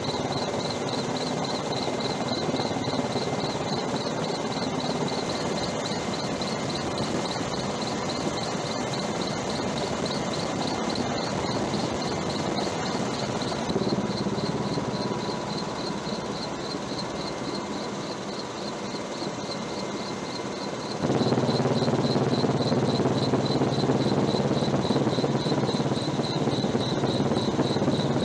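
Helicopter engine and rotor noise heard from aboard: a steady drone with a high whine that pulses rapidly. It shifts abruptly about halfway through and again about three-quarters of the way in, where it gets louder and fuller in the low end.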